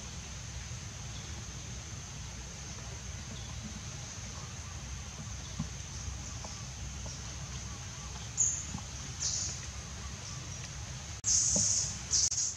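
Forest ambience: a steady high-pitched insect drone over a low rumble, with a few faint ticks. In the last four seconds come several short, loud, high-pitched bursts, the longest about half a second.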